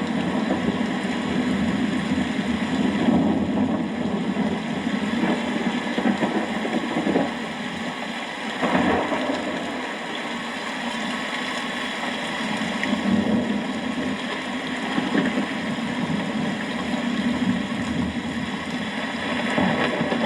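Thunderstorm ambience of rain and wind: a dense, steady rush, heaviest in the low range, that swells and eases, with a brief surge about nine seconds in.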